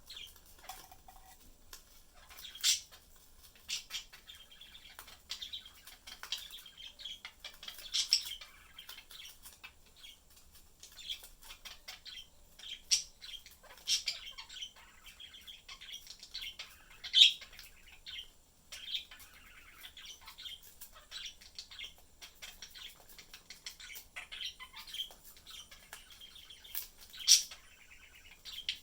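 Pet budgerigars chirping and warbling in a steady stream of short high calls, broken every few seconds by a louder, sharp chirp.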